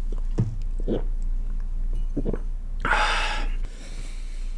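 A man gulping from a glass a couple of times, then one loud breathy exhale.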